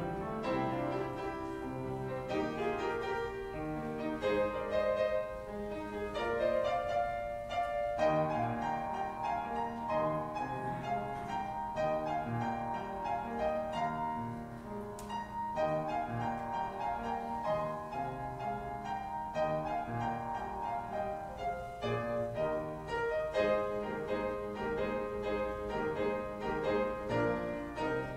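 Piano playing the postlude, a steady run of notes and chords.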